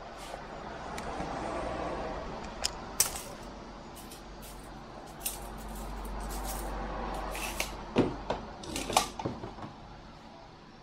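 Handling noises from a large wooden object being moved about: two slow swells of rustling and scraping, with scattered sharp clicks and knocks and a quick run of knocks near the end.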